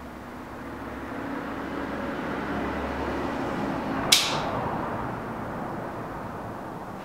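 A single sharp knock about four seconds in, over a rushing noise that swells and then fades.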